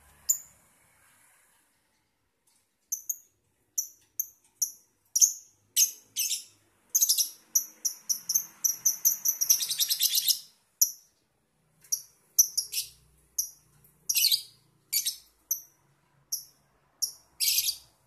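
Lovebird chirping: runs of short, shrill, high-pitched chirps that begin about three seconds in. They crowd into a fast, almost continuous stretch in the middle, then come in spaced groups with short pauses.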